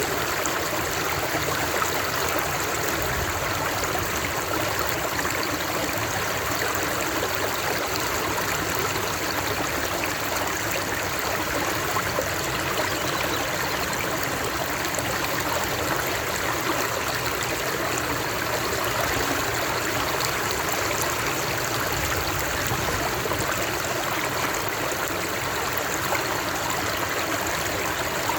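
Running water of a stream, a steady, even rush with no breaks.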